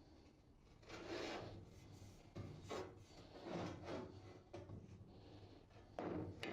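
Steel pieces being slid and scraped into place on steel plates, in about five short scraping bursts.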